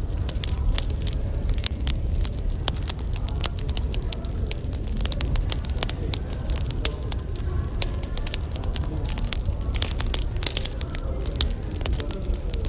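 Burning firewood crackling, with many sharp, irregular snaps and pops over a low, steady rumble.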